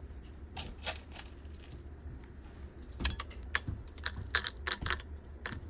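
Cheerios dumped into a cup, the small pieces clattering in scattered clicks at first, then a quick rattling run in the second half.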